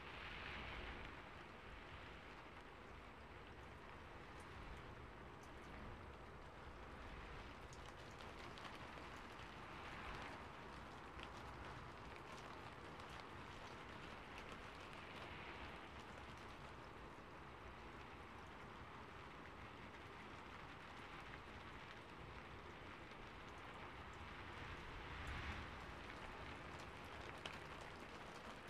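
Faint steady hiss of background noise, with a few soft rustles of paper being handled and folded.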